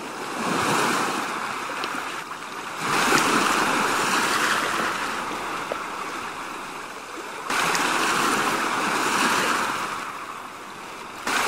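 Sea surf: a rushing hiss of waves that comes in long surges. A new surge cuts in sharply about three seconds in and again past seven seconds, and each one slowly fades.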